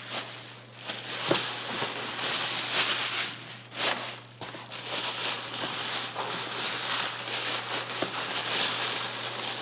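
Packing paper rustling and crinkling as it is pulled out of a box by hand, an irregular crackle with a few sharp clicks.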